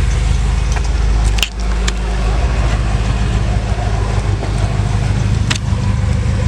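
Car engine idling steadily, a low even rumble, with a few sharp clicks over it.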